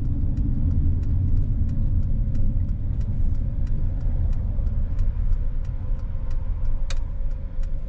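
Inside a van driving onto a roadside pull-off: steady low engine and tyre rumble, with a regular ticking about three times a second from the turn-signal indicator.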